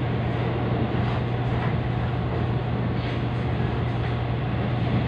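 Taiwan Railways EMU500 electric multiple unit running steadily, with a constant low hum under the even rumble of the wheels and carriage.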